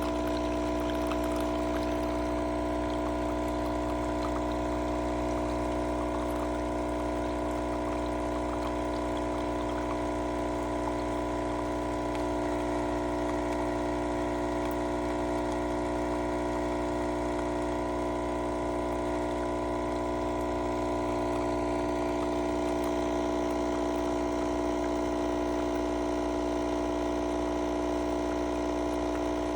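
KOTLIE 5-in-1 single-serve espresso maker's pump running with a steady hum as coffee pours into the cup.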